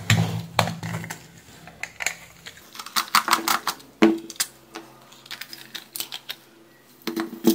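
Irregular small clicks and taps of a plastic epilator housing being opened by hand, with a screwdriver and a loose screw set down on the bench and the two shell halves pried apart.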